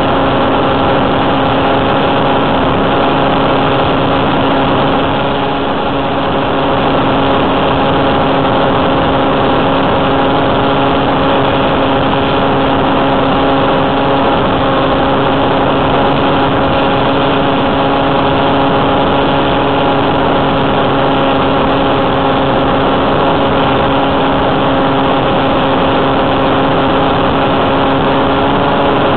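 Electric motor and propeller of an RC foam glider running steadily at part throttle, a steady hum of several even tones under a hiss.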